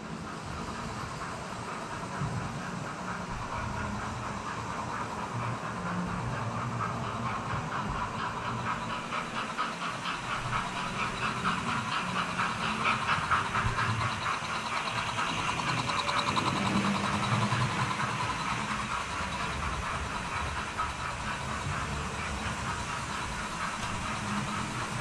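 Model railway locomotives running on the layout track: a steady whirr of small electric motors with the fine rapid rattle of wheels on rails. It grows louder from about twelve to eighteen seconds in, as a locomotive runs close by.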